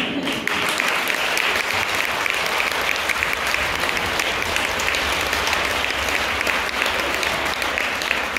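Audience applauding: many hands clapping in a dense, steady applause that builds within the first half-second and keeps going.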